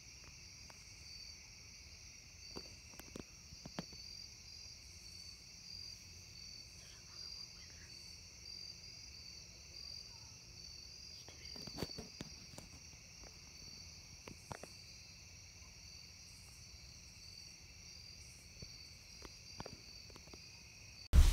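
Insects chirring in a steady evening chorus: a high, continuous trill with a regular pulse in it and a lower steady drone beneath, with a few faint clicks and taps here and there.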